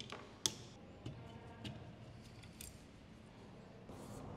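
Scattered sharp clicks and taps of a screwdriver, loose screws and metal parts against a wooden rifle stock and a hard workbench as a rusty air gun is taken apart; the sharpest click comes about half a second in, with a brief scrape near the end.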